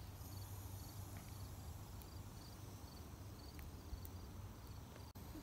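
Quiet outdoor ambience: faint, short high-pitched chirps repeating about twice a second over a low steady hum.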